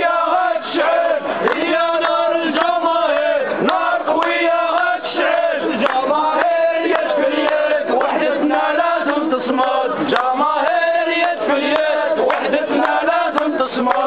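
A group of men chanting protest slogans together, loud and unbroken.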